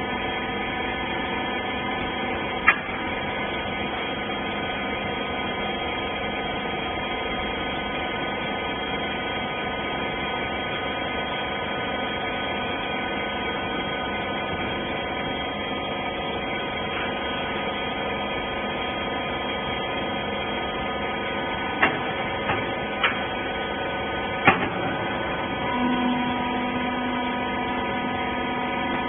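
Rag baler's hydraulic power unit running with a steady machine hum. A single sharp knock comes about three seconds in, and a few more come close together in the last third, after which a lower steady tone joins the hum.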